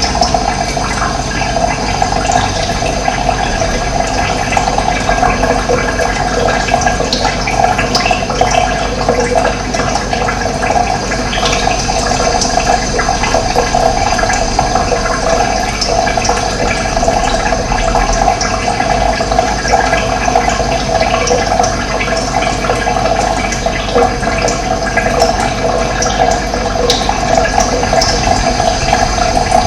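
Running water flowing steadily, a loud, even rushing with no break.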